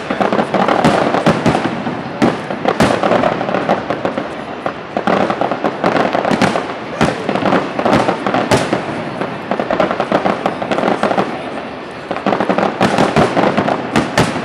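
Fireworks display going off: a dense run of bangs and crackling, with loud reports every second or so and the crackle heaviest in bursts of several seconds.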